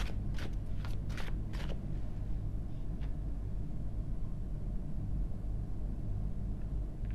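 A steady low hum, with several short sharp clicks in the first two seconds.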